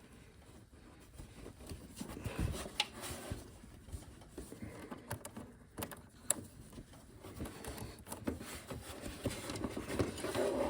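Irregular knocks, clicks and rustling as a hydraulic oil tank and its hoses are handled and wrestled into place on a garden tractor.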